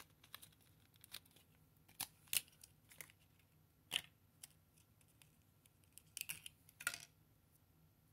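Small plastic blister pack being peeled open and handled: the paper backing tearing away, with scattered short crinkles and clicks of thin plastic, and a cluster of them about six to seven seconds in.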